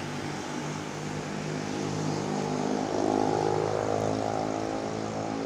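A steady engine drone that swells somewhat past the middle, over the rush of a shallow stream flowing across rocks.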